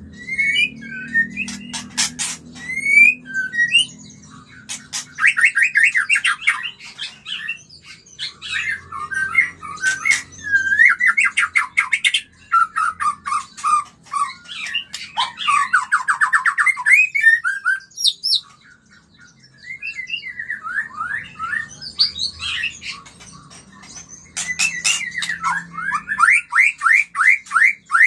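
Male white-rumped shama singing a varied, loud song of fast runs of repeated sliding notes, clear whistles and sharp clicks, with a short break about two-thirds of the way through. It is the song of a shama in breeding condition.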